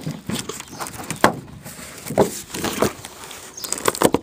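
Polycarbonate sheet being peeled off a solar panel, tearing away from the silicone sealant that glued it on. It gives irregular sharp cracks and crackling, roughly a second apart.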